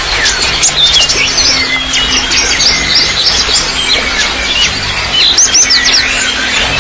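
Many small birds chirping and twittering in quick, overlapping calls over a steady trickle of running water.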